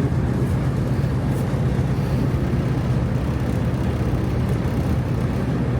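A steady, low mechanical hum that stays even throughout.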